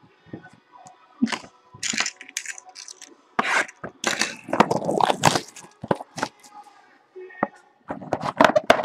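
Plastic shrink-wrap crackling and tearing as it is pulled off a sealed trading-card box, with the cardboard box being handled, in a series of irregular crackling bursts.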